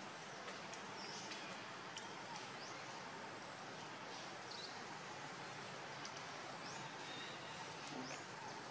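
Steady outdoor background hiss, with a few faint, short high chirps scattered through it and an occasional faint click.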